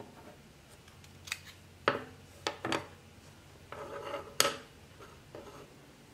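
A handful of short, sharp clicks and knocks with a brief rustle as pieces of fabric and a wooden embroidery hoop with a metal clasp are handled and set down on a wooden table. The loudest click comes about four and a half seconds in.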